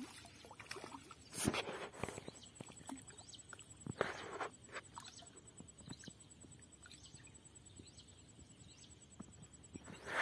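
A hooked tilapia splashing and thrashing at the water's surface as it is pulled in on the line, in a few separate splashes: about a second and a half in, around four seconds, and again near the end as it is lifted out.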